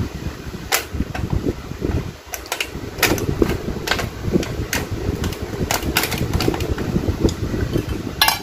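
Irregular light clinks and taps of a cooking tray and pieces of meat being handled and arranged in a countertop oven's pot, with a cluster of louder clatter near the end, over a steady low rumble.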